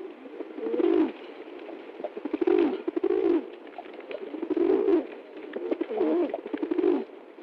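Domestic pigeons cooing: low, rolling coos in about four bouts, each a second or less, with short pauses between.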